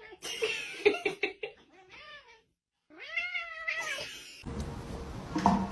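A cat meowing: a quick run of short meows, then, after a brief pause, one longer meow that rises and falls in pitch.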